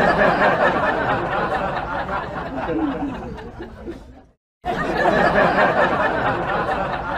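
Canned audience laughter: many people laughing together, swelling and then fading. It breaks off briefly a little past four seconds in and starts over.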